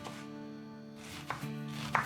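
Knife chopping on a cutting board: two sharp chops in the second half, the second one louder, over soft background music with held notes.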